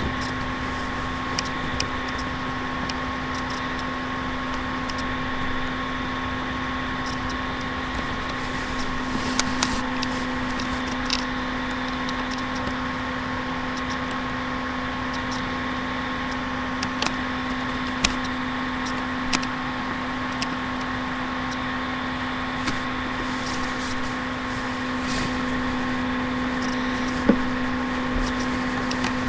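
Steady electrical hum with hiss beneath it, picked up by a laptop's built-in microphone, with a few faint clicks here and there.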